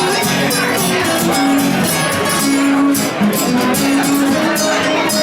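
Live band playing an instrumental passage: a repeating bass line under a steady high percussion beat.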